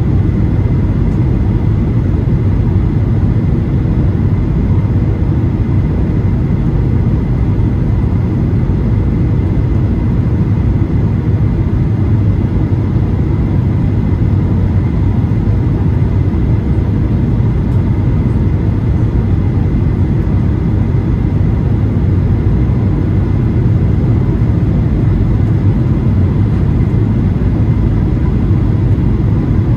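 Steady cabin noise of a Boeing 737-800 in flight, heard from a window seat: a low, even rumble of the CFM56-7B engines and airflow, with faint steady tones above it.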